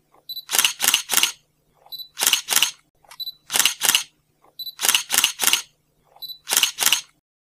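Camera shutter sound effect, repeated five times about every one and a half seconds. Each time a short high beep is followed by two or three sharp shutter clicks.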